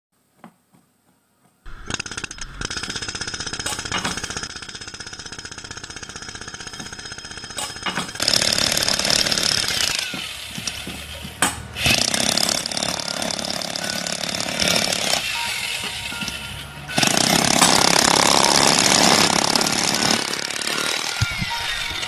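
A jackhammer hammering in long, dense runs. It starts suddenly after a second or two of near silence, grows louder about a third of the way in, and is loudest again near the end.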